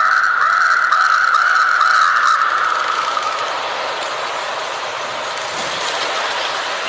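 Outdoor forest ambience: a steady hiss, with a drawn-out wavering tone that fades away over the first three seconds.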